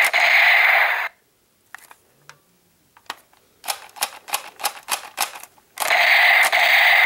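Plastic toy pistol's trigger clicked over and over, a run of sharp clicks that speeds up to about four or five a second. A loud, harsh hiss runs for about the first second, stops abruptly, and starts again near the end.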